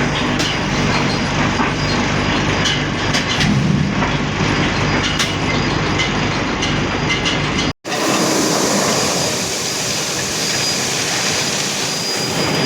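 Heavy construction machinery running: a diesel engine hum under a continuous rattling clatter. About eight seconds in it cuts off abruptly, and a steadier machine hiss with a thin high whine takes over.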